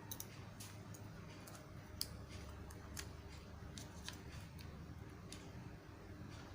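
Irregular small clicks and taps over a steady low hum, with the sharpest click about two seconds in.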